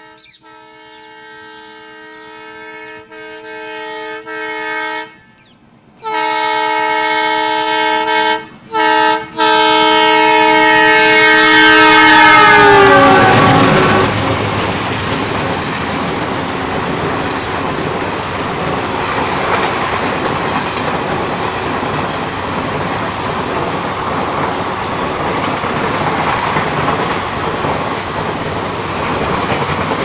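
WDM-3A diesel locomotive's horn sounding in long blasts as the train approaches, growing louder, with the pitch dropping as the locomotive passes about halfway through. After that the passenger coaches roll past with a steady rush of wheels on the rails.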